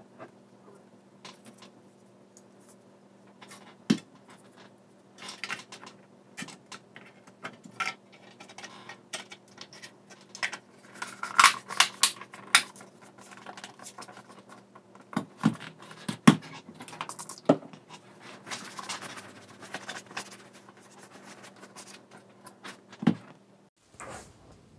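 Plastic clicks, snaps and scraping as a car rear-view mirror's housing is handled and pressed back together around its circuit board, the loudest snaps about halfway through. A faint steady hum lies underneath and stops shortly before the end.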